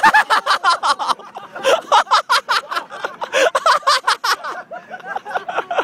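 People laughing hard close by: a long run of quick, pitched ha-ha pulses, several a second, easing off briefly near the end before picking up again.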